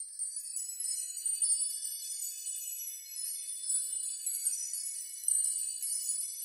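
Background track of high, glassy tinkling chimes: many overlapping ringing notes, all high-pitched with nothing low underneath.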